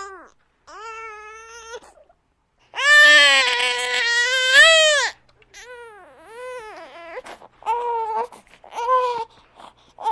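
Infant crying in separate wailing breaths: a weaker cry about a second in, a long loud wail from about three to five seconds, then a run of shorter cries with short gaps between them.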